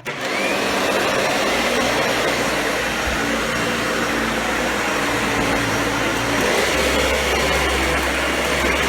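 Vacuum cleaner switched on, its motor spinning up with a short rising whine, then running steadily.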